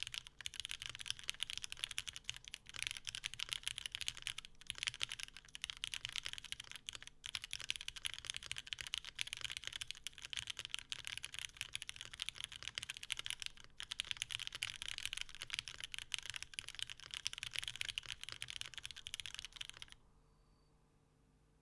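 Fast, continuous typing on a Toro60 mechanical keyboard with lubed Cherry MX Black linear switches in a top-mounted full aluminium plate: a dense stream of keystroke clacks that stops abruptly near the end.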